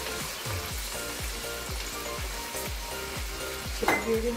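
Chicken pieces and chopped onion sizzling in hot oil in a wok, under background music with a steady beat.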